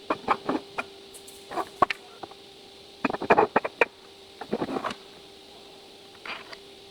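Clusters of quick wooden knocks and clatters, several groups of sharp taps, as plywood parts are handled and fitted together. A faint steady hum runs underneath.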